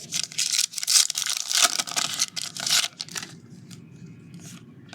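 Crinkly wrapper of a trading-card pack being torn open and scrunched, a run of quick rustling tears for about three seconds that then dies away.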